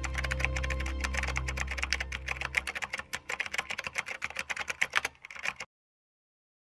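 Computer keyboard typing sound effect: a fast run of clicks over a low background music drone that fades out about three seconds in; the typing stops about five and a half seconds in.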